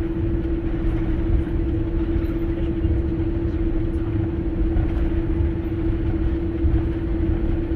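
Airliner cabin noise on the ground: a steady low rumble of the engines and air systems under one constant hum, with no change in level as the plane taxis slowly.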